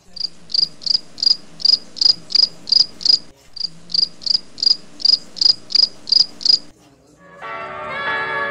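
Cricket chirping sound effect: a regular high-pitched chirp about three times a second, with a brief break a little past midway, cutting off abruptly near the end. Background music comes back in just before the end.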